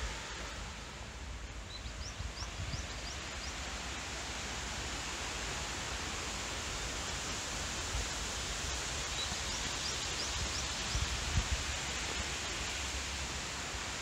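Steady rushing hiss of a small waterfall and its stream, with a small bird twice giving a quick run of high chirps, about two seconds in and again about nine seconds in.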